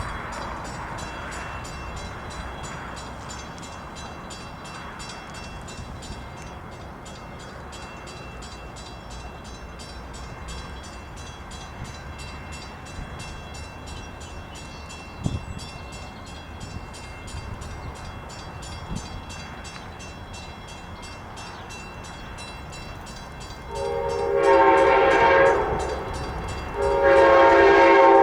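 Passenger train's multi-chime air horn sounding two long blasts near the end, over a steady low rumble of wind on the microphone.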